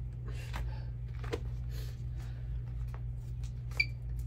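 Handheld security metal detector wand giving one short, high beep near the end as it is passed over a jacket, the alert for detected metal. Faint clothing rustles over a steady low hum.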